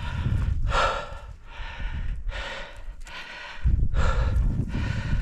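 A cyclist breathing hard, one heavy puff of breath after another about every second, over a low rumble.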